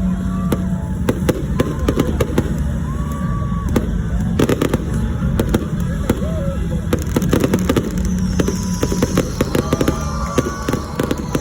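Fireworks going off: a rapid, irregular run of sharp bangs and crackles, with high rising whistles over the last few seconds.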